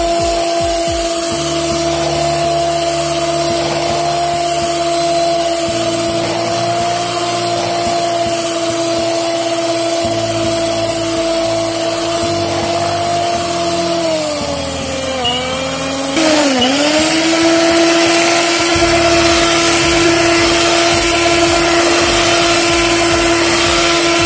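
Electric hand mixer running steadily as its beaters churn a thick carrot cake batter in a bowl, with a steady motor whine. About fifteen seconds in, the whine dips in pitch twice and comes back up.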